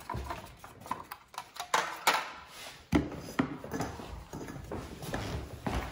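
A wooden stir stick scraping and tapping in a thin aluminium foil tray while mixing two-part epoxy, with irregular handling noise and a few sharper knocks about two and three seconds in.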